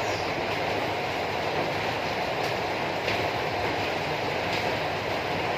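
Steady rushing noise at an even level, with a few faint ticks.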